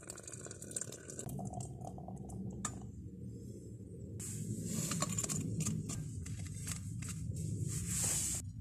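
Hot water poured from a cooking pot into a steel vacuum flask, then the flask being handled and the rustle of a padded jacket and clothing, in two hissy bursts.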